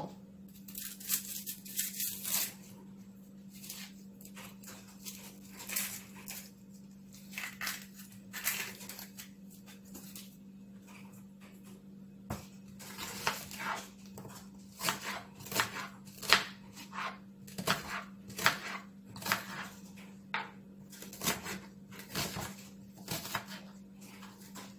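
An onion being peeled by hand: its dry, papery skin crackles and tears in many short, irregular bursts, with light knocks against a plastic cutting board. A steady low hum runs underneath.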